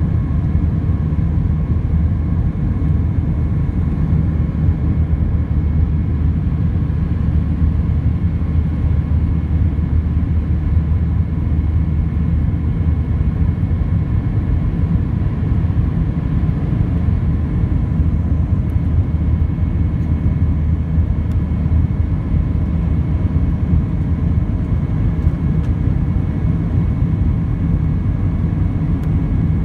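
Steady cabin noise of an Airbus A319-100 climbing out after takeoff, heard from a seat over the wing: a deep, even rumble of engines and airflow with a few faint steady tones above it.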